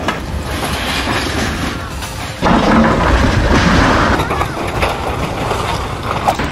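Crawler excavator demolishing a building: its engine running under the crash and scrape of sheet metal and rubble, getting louder about two and a half seconds in.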